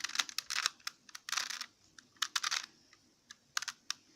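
Rubik's Cube being scrambled: the plastic layers are turned in quick runs of clacking clicks, with a short pause about three seconds in.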